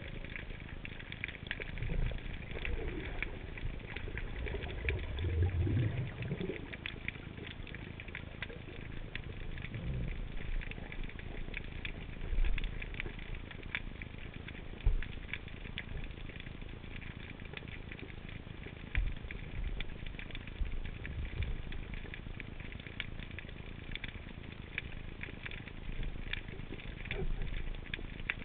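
Underwater ambience picked up by a submerged camera: a constant dense crackling of tiny clicks from the rocky seabed, with occasional low thumps and rumbles.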